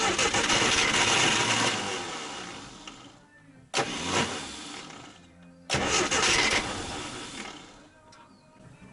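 UAZ 31512 engine being started three times, catching each time and then running down and dying. It is running only on petrol poured into the carburettor because the fuel pump is not pumping.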